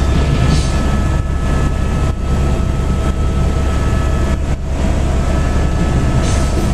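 Helicopter cabin noise in flight: a loud, steady drone from the engine and rotor, with constant whining tones above it.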